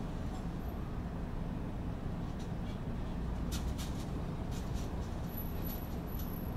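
Residential street ambience: a steady low rumble of distant traffic, with a few faint ticks and clicks in the middle.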